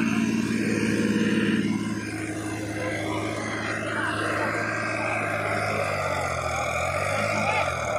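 New Holland farm tractor's diesel engine running hard while hauling a loaded trailer across soft paddy ground, straining as the wheels sink. It eases slightly about two seconds in, and near the end its pitch falls and climbs again.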